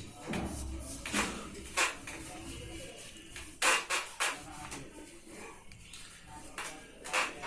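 A series of sharp clicks and knocks from objects being handled, with a low rumble during the first few seconds.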